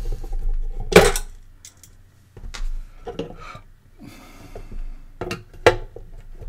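Hands fumbling a small screwdriver and screws against the plastic housing of a hot air desoldering station and its gun cradle, trying screws that don't seem to fit the holes. A sharp click about a second in, then scattered lighter clicks and knocks.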